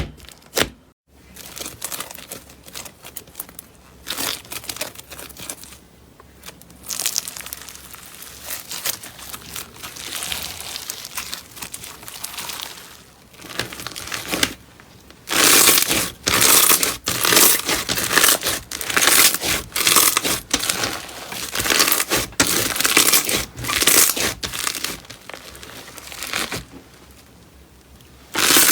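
Hands squeezing, stretching and pressing a thick, firm slime, with runs of crackling and popping as air pockets burst; the crackling is fainter at first and comes in louder bursts from about halfway through.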